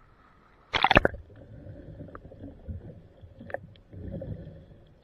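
A sharp splash about a second in as the microphone is plunged into the sea, followed by muffled underwater gurgling and rumbling.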